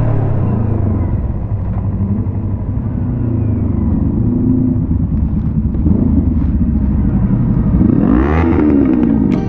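Motorcycle engine running on the road, its pitch rising and falling with the throttle, with a sharp rev up and back down about eight seconds in.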